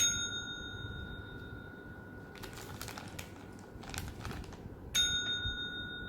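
A small tabletop service bell struck twice, about five seconds apart. Each ding rings on for a second or two.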